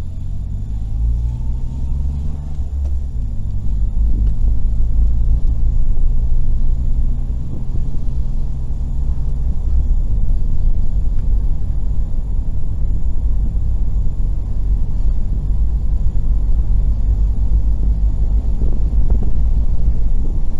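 Car engine and road rumble heard inside the cabin while driving. The engine note climbs over the first few seconds as the car picks up speed, holds steady, then gives way to an even, low tyre-and-road rumble about halfway through.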